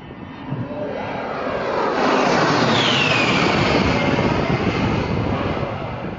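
A-10 Warthog's twin TF34 turbofan engines on a low flyby: the jet noise grows louder about two seconds in, with a high whine that slides down in pitch as the aircraft passes, then eases off near the end.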